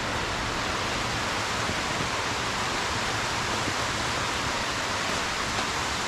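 A waterfall's falling water making a steady, unbroken rush, heard close by from the top of the falls.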